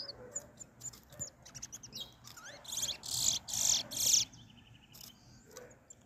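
Caged towa-towa (large-billed seed finch) singing a fast song of chirps, trills and warbled notes in bursts, loudest about three to four seconds in, then falling quieter; the birds are competing in a song contest.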